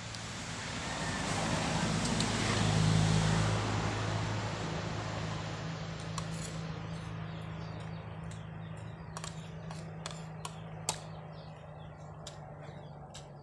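A motor vehicle passing by: its noise swells to a peak about three seconds in, then slowly fades while a low engine hum lingers. A few sharp clicks are heard in the second half.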